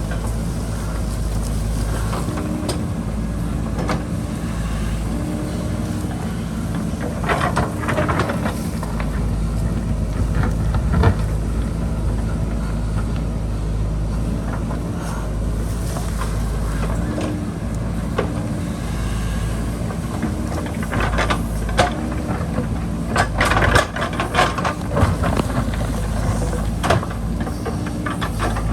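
JCB backhoe loader's diesel engine running steadily under load while it digs, with bursts of scraping and clattering from the bucket working rock and soil about a quarter of the way in and again, more densely, near the end.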